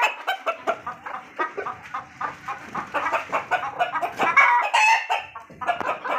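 Chickens clucking in quick, overlapping calls, several a second. A louder, drawn-out pitched call comes about four and a half seconds in.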